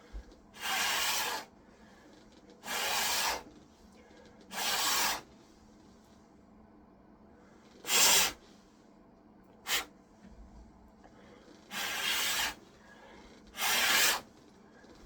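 Scrubbing strokes on a keyboard's plastic frame, seven short rubs of under a second each, one of them very brief, with pauses of a second or more between.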